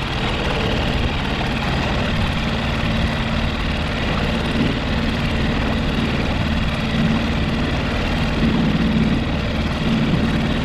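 Fishing boat's motor running steadily at slow trolling speed, a constant hum over the noise of the boat moving through the water.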